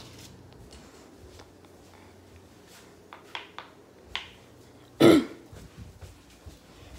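A few faint clicks of the phone being handled, then about five seconds in a short, loud sound from a person's throat that falls in pitch, like a burp.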